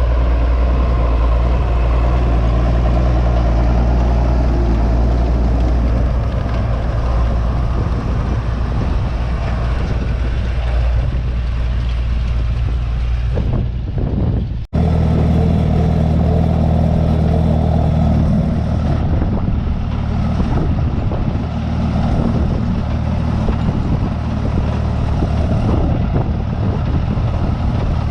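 Farm tractor engine running steadily under load, with a sudden break about halfway through, after which it carries on at a slightly different pitch.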